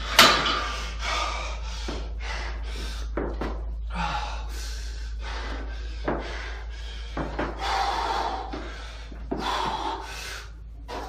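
A cable machine's weight stack clanks down once just after the start as the pull-down bar is released, followed by hard, rapid breathing, one gasp about every second, from a man recovering after a high-intensity set.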